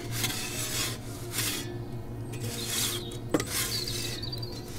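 Metal pizza peel scraping across the stone floor of an Ooni Koda gas pizza oven in several short rasping strokes about a second apart, as the pizza is turned.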